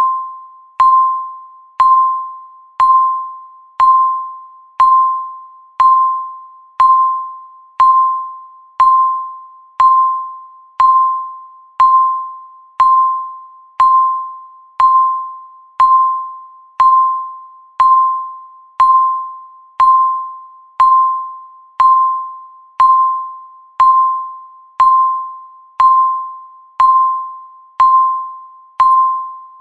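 Countdown timer's tick sound: a short, bell-like electronic ping, once every second, each fading quickly.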